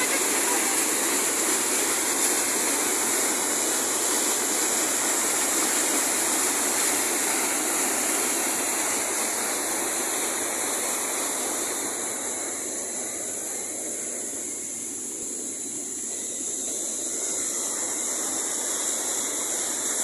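Waterfall cascade: white water rushing steadily over the rocks, a little softer about two-thirds of the way through.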